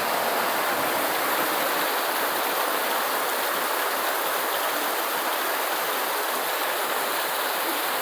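Steady, even hiss of heavy rain falling, with no breaks or single drops standing out.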